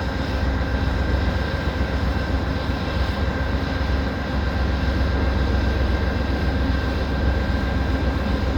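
Diesel locomotives of a stopped Amtrak passenger train idling: a steady engine drone with a constant high whine over it, mixed with heavy wind rumble on the microphone.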